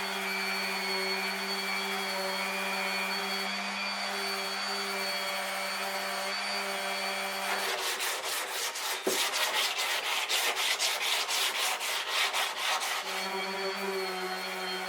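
Steady hum of a small electric motor. About halfway through it stops and gives way to several seconds of quick, rhythmic rubbing strokes, like sanding by hand, before the motor hum returns near the end.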